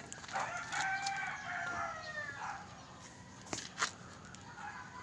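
A rooster crowing once, one long call of about two seconds, followed a second or so later by two sharp knocks.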